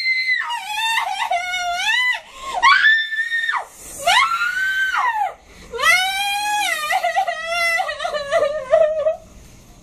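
A girl screaming and sobbing "Mom!" ("แม่!" in Thai) over and over in a string of long, high-pitched wails. The last wail is the longest, and they stop a little before the end.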